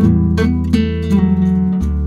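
Background music: acoustic guitar picking a melody, a note about every third of a second over a sustained bass line.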